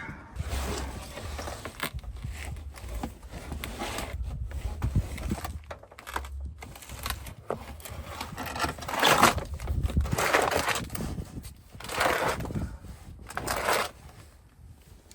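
Irregular scraping and rustling bursts from parts being handled during work on a car's engine bay, over a low rumble that fades out near the end.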